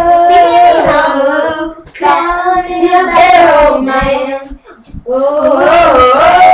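Young girls' voices singing loudly in long held notes, in three phrases with short breaks between them.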